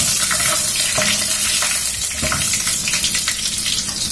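Panch phoron and dry red chillies sizzling in hot oil in a steel wok, stirred with a spatula: the tempering stage of the dish.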